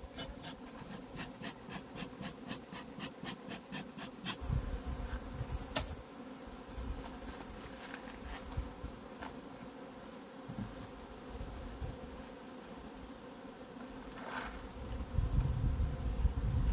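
Honeybees buzzing steadily over an open hive. A quick run of soft ticks sounds through the first four seconds, a single sharp click about six seconds in, and a low rumble near the end.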